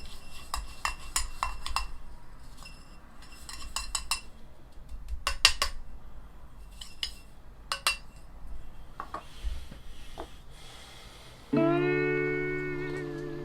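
Scattered clinks and taps of tableware and utensils being handled, the sharpest a few seconds in. Guitar music starts again about two-thirds of the way through.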